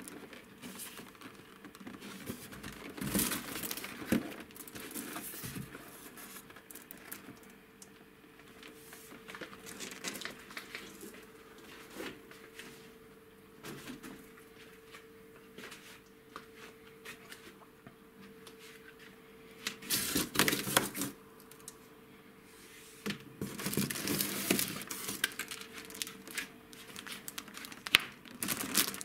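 Plastic shrink-wrap on toy boxes crinkling and cardboard rustling as the boxes are handled inside a shipping carton. The sound comes in irregular bursts, the loudest about two-thirds of the way through, over a faint steady hum.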